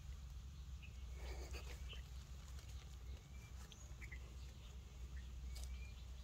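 Faint short high animal chirps, several of them spread through, over a steady low rumble, with a brief rustle about a second in.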